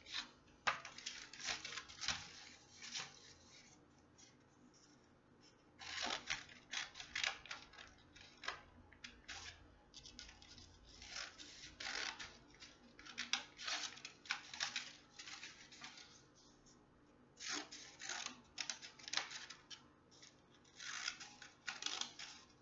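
Scissors snipping through folded paper, cutting a row of strips: quick runs of short snips with brief pauses between them.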